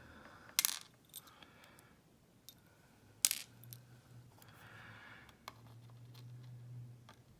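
Small metal pins from a gutted Yale pin-tumbler lock cylinder clinking as they are picked up and set down on a hard surface while being rearranged. Two sharp metallic clicks, shortly after the start and about three seconds in, with a few lighter ticks between.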